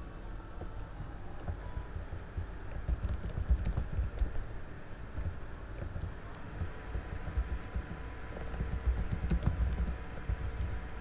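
Irregular clicking and soft thumping of typing on a computer keyboard, over a steady low hum.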